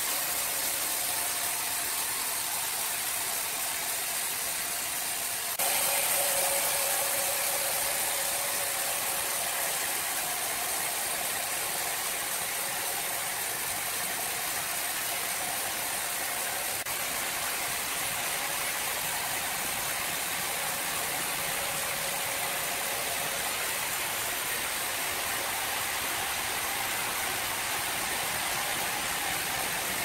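Horizontal band sawmill running, its blade cutting lengthwise through a large squared timber: a steady whirring hiss that steps up a little in loudness about five and a half seconds in.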